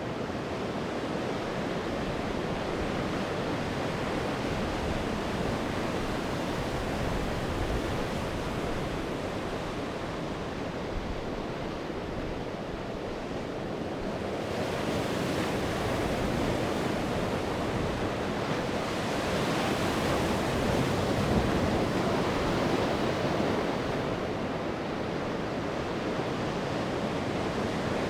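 Sea waves breaking and washing on the shore in a steady rush, with a larger wave swelling up about halfway through and falling away near the end.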